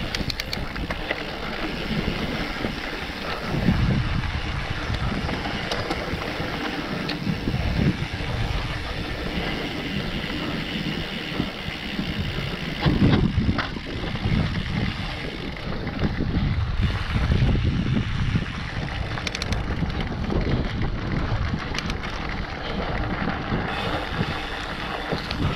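Wind buffeting the microphone of a camera riding on a mountain bike, with knobby tyres rolling over a dry dirt trail and the bike rattling over bumps. A few louder thumps from hits, the biggest about halfway through.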